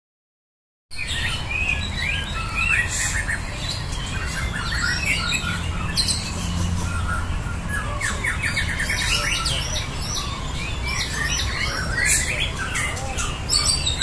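Several caged white-rumped shamas (murai batu) singing against each other in a song contest, their rapid, overlapping phrases and trills starting about a second in and carrying on densely, over a low steady rumble.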